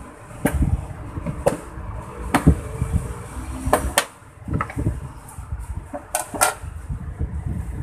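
Scattered light knocks and clicks, about eight of them at uneven intervals, over a low rumble.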